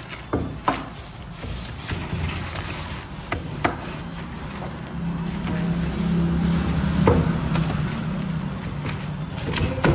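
Meat cleaver chopping a charcoal-grilled chicken on a thick wooden chopping block: sharp, irregular chops a second or a few seconds apart. A low steady hum sits underneath and grows stronger from about halfway through.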